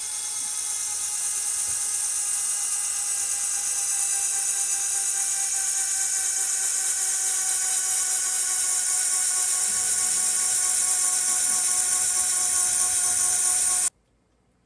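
Electric drill running steadily with a high whine that sinks slightly in pitch, then stopping abruptly near the end.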